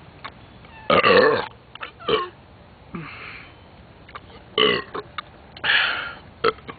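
A person burping repeatedly: a run of separate pitched belches, the loudest and longest about a second in.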